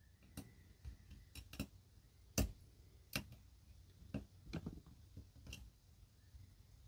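Diamond lock pick working the pins of a five-pin Yale Eaton padlock under tension: faint, irregular clicks and taps as the pick lifts and sets the pins, the loudest about two and a half seconds in.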